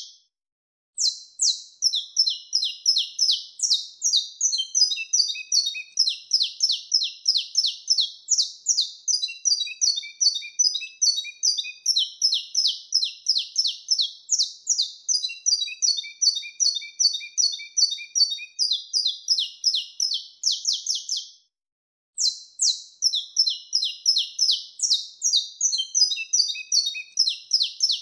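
Saffron finch (canário-da-terra) singing its wild-type 'mateiro' song: long runs of rapid, high, repeated notes that dip and climb in pitch. The song pauses for about a second at the start and again briefly near the end.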